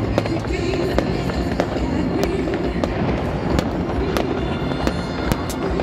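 New Year fireworks and firecrackers going off in irregular sharp cracks and pops, a few a second, over a continuous low din.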